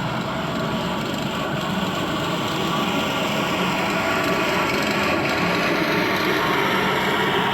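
A column of large radio-controlled Armortek scale model tanks on the move: motor and gear whine with the steady clatter of their tracks. It gets a little louder partway through.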